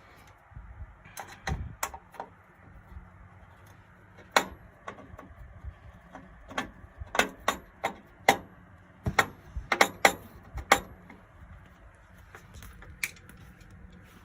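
Irregular sharp clicks and taps of a screwdriver and screws working on a metal PC case, a dozen or so scattered strikes that are thickest in the middle of the stretch.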